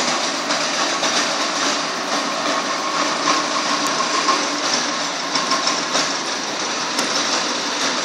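Belt-driven hammer mill running, a steady dense mechanical noise with a faint whine held through it.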